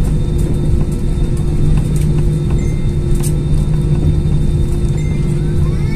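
Jet airliner's turbofan engines and rolling wheels heard from inside the cabin: a loud, steady rumble with a constant low hum, as the plane rolls along the runway after landing.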